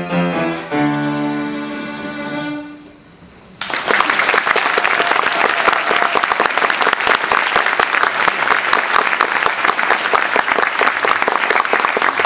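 Violin and piano play the last notes of a piece, ending on a held note that fades out a little under three seconds in. After a short hush, audience applause starts suddenly and carries on steadily.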